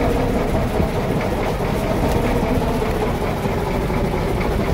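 Boat engine running steadily, a constant low rumble with a faint steady hum.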